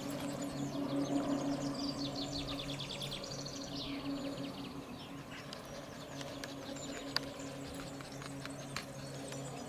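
A songbird singing a fast, high trill of rapidly repeated notes that falls in pitch, about a second in, over a steady low hum with a faint pulsing beat. A couple of faint clicks come near the end.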